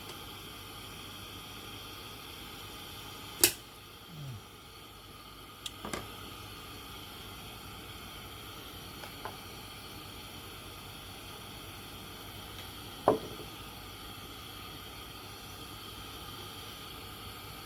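Steady hiss of a pressure kerosene lantern, with a few sharp clicks and knocks from handling, the loudest about three seconds in and again near thirteen seconds.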